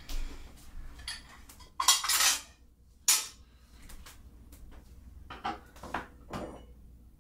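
Dishes and glassware being handled on a kitchen counter: a run of sharp clinks and clatters, loudest about two seconds in, then smaller knocks spaced through the rest.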